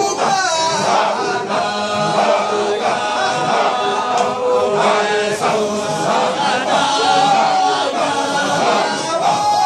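A crowd of men chanting together without pause in a Sufi devotional chant, loud and continuous.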